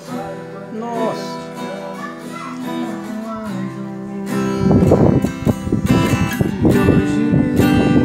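Acoustic guitar played gently with held notes, then strummed harder and louder from about halfway through.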